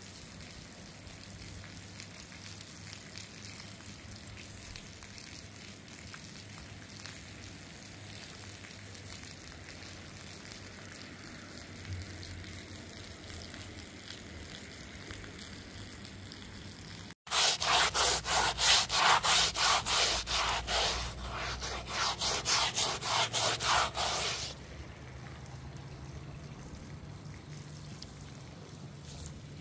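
Water from a garden hose running quietly onto a rug, with faint drips. After a sudden cut about two-thirds of the way in, loud rhythmic scrubbing strokes across the wet, soapy rug come about two or three a second for some seven seconds, then stop.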